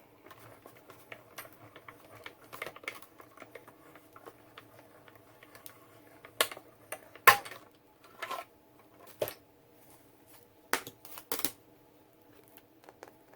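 Plates and a 3D embossing folder being handled and cranked through a Stampin' Cut and Emboss machine. Faint small ticks run through the first few seconds, then come several sharp clicks and knocks, the loudest about seven seconds in.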